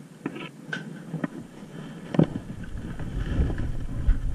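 Scattered knocks and footsteps picked up by a jostled, body-worn action camera. A sharper knock about halfway through, after which a low rumble of handling noise on the microphone builds to the end.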